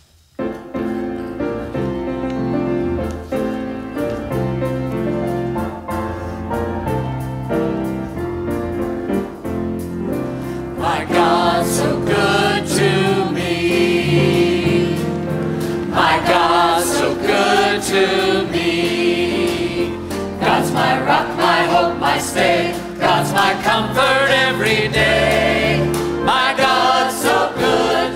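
Grand piano playing an introduction, then a mixed choir of men's and women's voices comes in singing with the piano about eleven seconds in, louder from there on.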